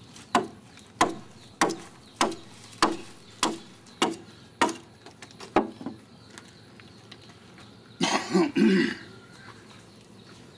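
Regular chopping strokes of a hand-held blade cutting into the wooden hull of a dug-out canoe, about one stroke every 0.6 seconds, stopping about halfway through. Near the end, a short rough cough or throat-clearing sound.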